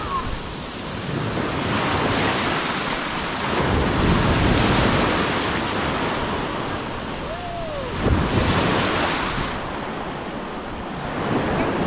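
Rough sea surf: waves breaking and washing in, swelling louder about four seconds in and again about eight seconds in, with wind buffeting the microphone.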